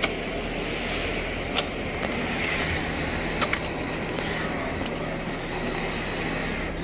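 Steady background hiss with a few sharp clicks and taps from a hobby-grade RC drift car being handled on a plywood bench: one just after the start, one about a second and a half in, and a quick pair around three and a half seconds.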